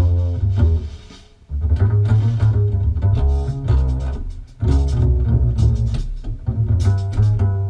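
Music with a strong, deep bass line, played back through a pair of Energy Connoisseur C-7 loudspeakers and heard in the room. The music drops away briefly about a second in and again for a moment near the middle.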